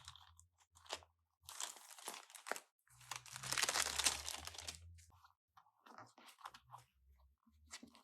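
Clear plastic sleeve crinkling and crunching in bursts as a planner in a fabric cover is forced into it, the longest and loudest stretch about three seconds in. Faint bass guitar notes sound underneath.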